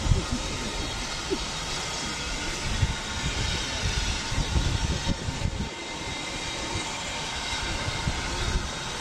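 Steam train running on the line: a steady hiss with uneven low rumbling beneath it.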